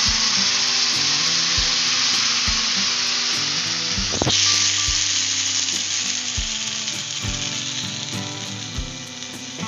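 Ground idli-and-milk batter being poured into hot ghee in an iron kadai, sizzling loudly at first and slowly dying down as the liquid fills the pan, with a short knock about four seconds in.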